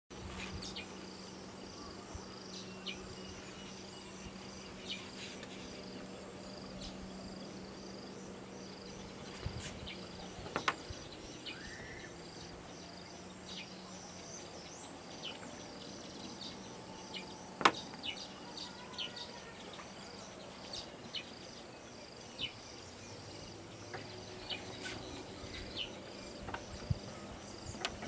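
Steady insect chirring with scattered short bird chirps. A low steady hum stops about a third of the way in, and a few sharp clicks stand out, the loudest about two-thirds through.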